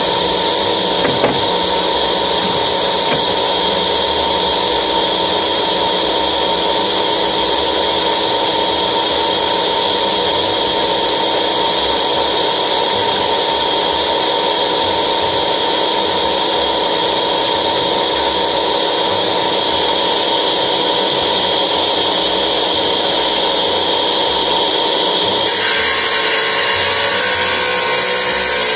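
Electric masonry tile saw running steadily with a constant motor whine. About 25 seconds in, its circular blade starts cutting into a cement tile, adding a harsh grinding hiss.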